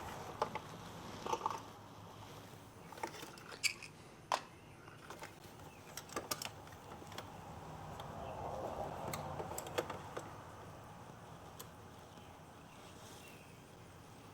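Scattered light clicks and small handling sounds, a dozen or so at irregular intervals, over a faint hiss.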